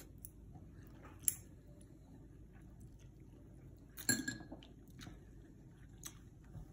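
Chopsticks and a spoon clinking against a ceramic bowl of noodles: a sharp clink about a second in, another about four seconds in, and a few fainter taps in between.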